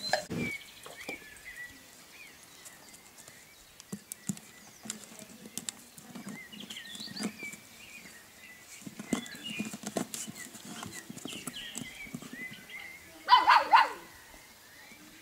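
Golden retriever puppy squeaks and whines in high, gliding chirps, with scattered scratching and small taps. A louder short burst of yelps comes about thirteen seconds in.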